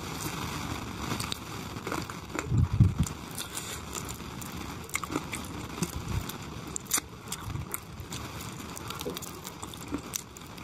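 Close-miked wet chewing and lip-smacking of a man eating chicken curry with khichuri by hand, with many short sharp clicks and a few low thuds.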